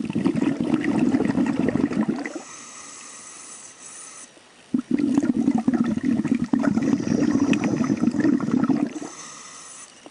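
Scuba diver breathing through a regulator underwater: two long bubbling exhalations, the first about two seconds and the second about four, each followed by the quieter, thin hiss of an inhalation.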